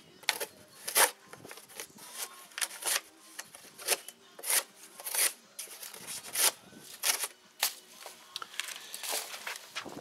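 Victorinox Hunter XS pocket-knife blade cutting through corrugated cardboard in quick repeated strokes, a short rasp roughly twice a second.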